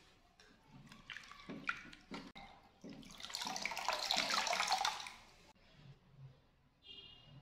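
Water splashing and dripping as wet long hair is dipped and handled in a bowl of warm salt water, then a louder stream of water running out of the hair as it is wrung into the bowl for about two seconds, cut off suddenly a little past halfway.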